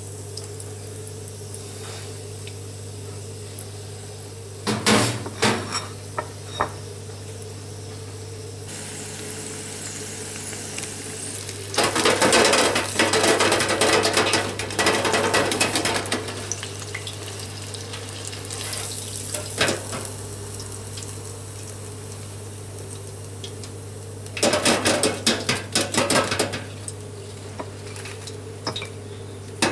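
Crumbed crayfish pieces deep-frying in hot oil in an electric deep fryer, with a steady sizzle. Louder spells of metal clatter from the wire fryer basket come about 5 seconds in, again for several seconds around the middle, and near the end.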